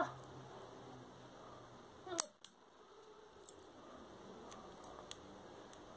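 A broken fingernail being snipped: one sharp click about two seconds in, then a few faint clicks.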